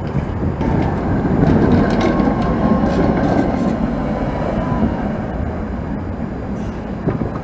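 A Škoda 03T low-floor tram passing slowly and close by: its wheels running on the rails with a few sharp clicks over joints, and a faint steady whine that fades out about halfway through.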